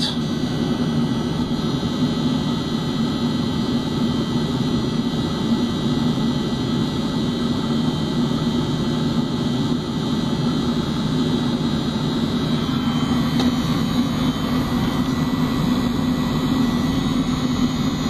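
Webasto diesel heater running steadily at half load: a continuous whir-and-roar of its combustion air fan and burner, with no change in pace.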